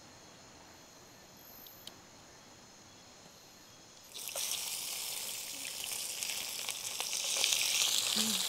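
Crickets chirring steadily in the night. About four seconds in, a louder hiss with crackles starts suddenly and grows.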